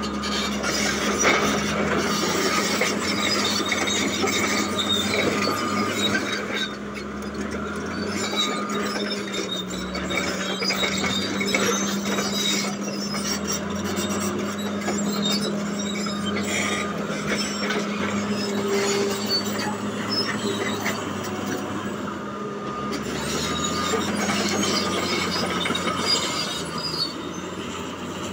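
Caterpillar D8T crawler dozer's diesel engine running steadily under load as its rear ripper tears through rocky ground, with short high squeaks from the steel tracks now and then.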